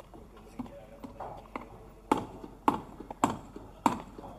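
Footsteps on hard stone paving, sharp even steps about every half-second. Four loud steps come from about two seconds in, after a quieter stretch with only a few light taps.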